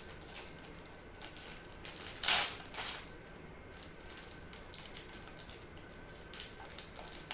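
Foil wrapper of a Pokémon Lost Thunder booster pack being torn open and crinkled by hand, a run of small crackles with the loudest rustle about two seconds in.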